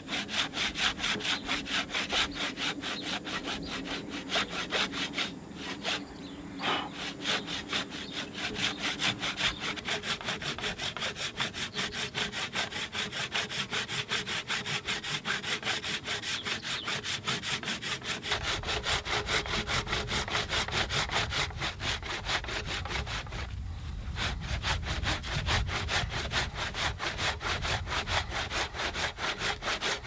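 Japanese-style pull saw cutting across a wooden timber beam by hand, in steady, even strokes, pausing briefly twice.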